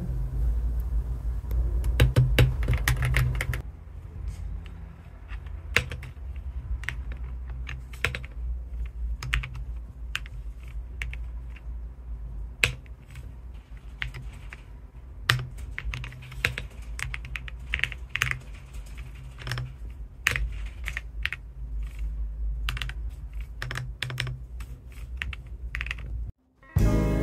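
Typing on a mechanical keyboard: quick key clacks, a dense run in the first few seconds, then sparser bursts of keystrokes, over a steady low hum.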